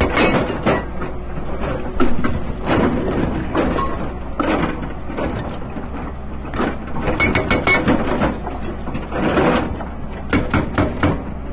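Excavator-mounted hydraulic rock breaker hammering its chisel into boulders in bursts of rapid blows, several a second, with irregular crunching of rock between the bursts.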